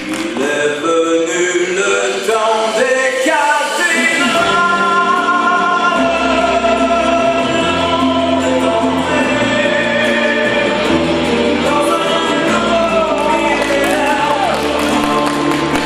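Music with singing: a song with sustained sung lines over an accompaniment, with a climbing run of notes in the first few seconds.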